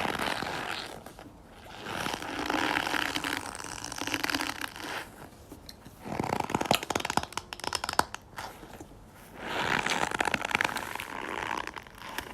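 Slime being squeezed and worked by hand, making squelching, fart-like swells about two seconds each, with a stretch of crackly popping in the middle.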